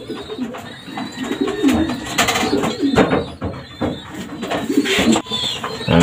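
Racing pigeons cooing in their wire loft cages, with a few sharp clicks.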